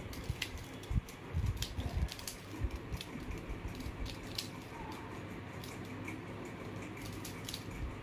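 Mirror cube being turned by hand: irregular light plastic clicks as its layers are twisted, with a few dull low knocks in the first couple of seconds.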